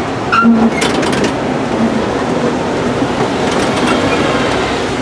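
Steady rumbling cabin noise inside a 1909 ASEA heritage tram, with a few sharp rattles and clicks about half a second to a second in.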